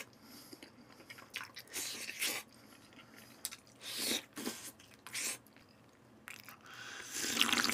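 Close-up mouth sounds of a man biting and chewing a piece of boiled kabocha squash with spicy braised beef short rib: irregular wet chewing smacks, with a louder, longer mouth sound near the end.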